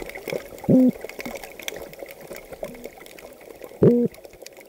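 Underwater recording of toadfish boatwhistle calls: short pitched calls, two loud ones about a second in and near the end with fainter ones between, over a scatter of crackling clicks.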